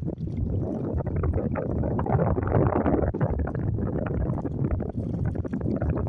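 Wind rumbling on the microphone over a rippled lake, with small waves lapping and splashing against the rocky shoreline.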